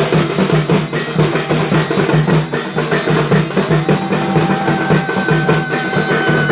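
Ritual drumming and percussion for the evening arati, beaten fast and steadily. A steady high held tone joins about four seconds in.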